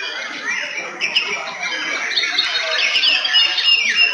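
Several caged white-rumped shamas (murai batu) singing at once in a song contest, a dense tangle of loud overlapping whistles, rapid trills and sweeping notes.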